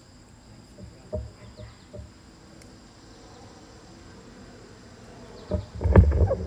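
Steady high drone of summer insects. Near the end come loud low bumps and rustling as a handheld microphone is lifted from its stand.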